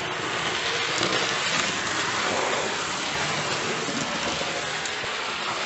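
Hornby OO-gauge BR Standard 9F model steam locomotive running at speed round the layout: a steady whir of its electric motor and wheels on the track, running well on its first run.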